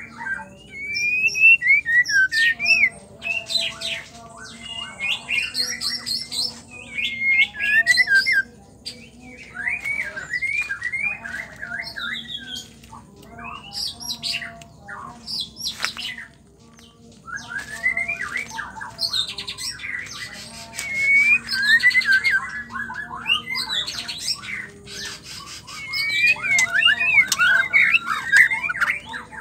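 White-rumped shama singing in phrases of quick, varied chirps and whistled notes, with short gaps between phrases and a brief lull a little past halfway.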